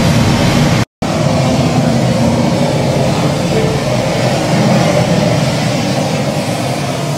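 Steady rush of surf, recorded ocean waves played through the sound system of an immersive wave-projection room. The sound cuts out briefly to silence about a second in.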